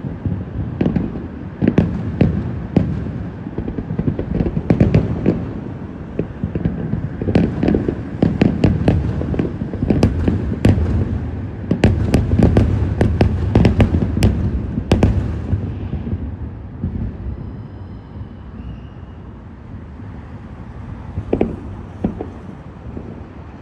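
Fireworks display: a fast barrage of sharp bangs and crackles over a low rumble, thinning out about two-thirds of the way through to a few scattered bangs.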